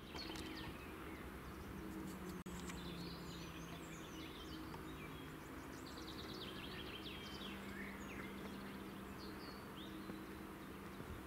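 Outdoor woodland ambience: several small birds chirping and singing in short trills over a faint steady low hum.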